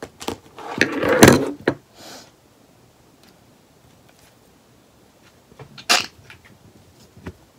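Loud knocks and rustles from the recording phone being handled right at its microphone, the loudest about a second in, with another sharp knock near six seconds.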